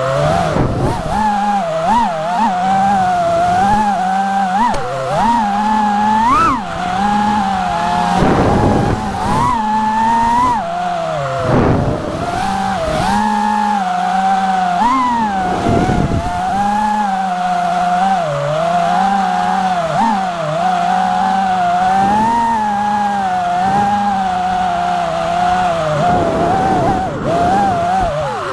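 FPV quadcopter's brushless motors whining continuously, the pitch rising and falling over and over as the throttle changes in flight.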